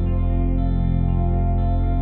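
Slow ambient background music with held tones, shifting to new notes about half a second in and again near the end.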